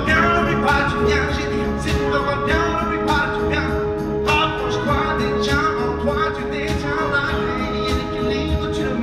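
Concert band playing live with a bass guitar and a programmed hip-hop beat, a man singing or rapping into a microphone over it. A long held note sounds through, with a steady beat.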